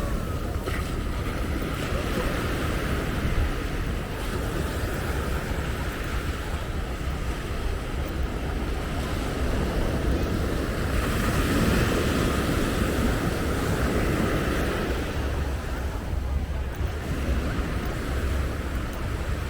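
Surf washing up on the beach, with wind buffeting the microphone; a wave swells louder about eleven seconds in and dies back a few seconds later.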